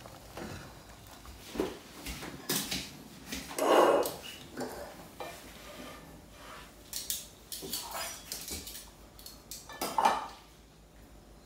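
Kitchen clatter of a cooking pot and metal tongs: scattered clinks and knocks of metal on metal, with a louder clank about four seconds in and another near ten seconds.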